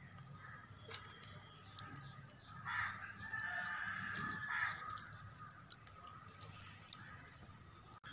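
Crows cawing: several calls about two seconds apart.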